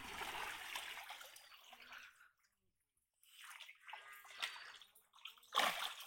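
Water splashing and sloshing as a man wades through a pond with his hands in the water, gathering in a cast net. The splashing breaks off for about a second midway, then resumes with a louder splash near the end.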